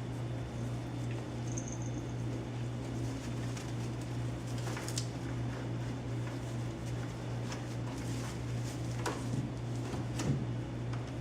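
Five-to-six-week-old puppies at play: a brief high squeak and scattered scuffles and small knocks over a steady low hum.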